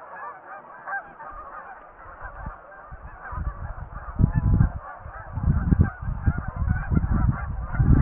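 A flock of Canada geese honking, many overlapping calls at once without a break. From about three and a half seconds in, a low rumble comes and goes in gusts over the calls and is louder than them.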